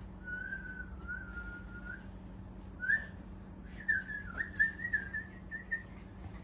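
A person whistling a wavering tune in a few short phrases, with a pause in the middle.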